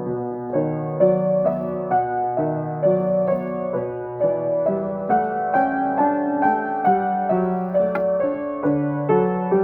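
Acoustic piano playing a slow, gentle improvisation: melody notes struck about twice a second over held bass notes that change every second or so.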